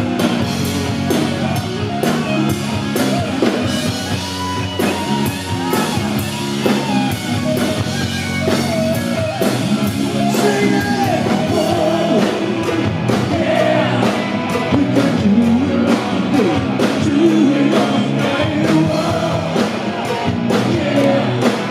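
Live hard rock band playing loudly: electric guitar lead lines bending over driving drums and bass.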